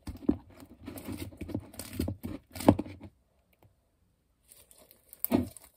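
Sticky borax slime being scraped from a plastic bowl and pulled and squeezed by hand: a run of small wet crackles and clicks for about three seconds, a short pause, then one louder sticky crackle near the end.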